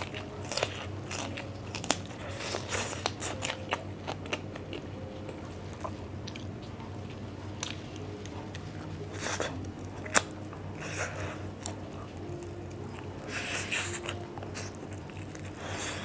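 Close-miked eating: crisp, crunching bites and chewing of cucumber, densest in the first few seconds, then chewing on grilled barbecued meat with scattered crunches.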